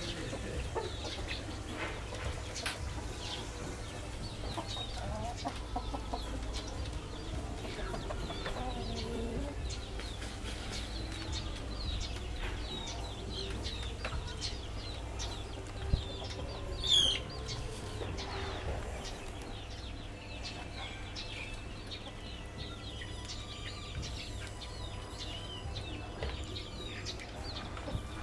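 Chickens in a pen clucking, with many short high chirps scattered throughout. There is one loud, high-pitched call about seventeen seconds in.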